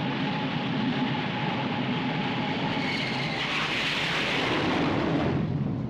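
Jet aircraft engine noise, a steady rush with a low hum that grows louder and brighter about three and a half seconds in, then fades near the end.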